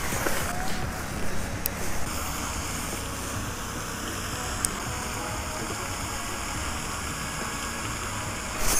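A steady rushing outdoor noise with faint background music, and a couple of brief clicks.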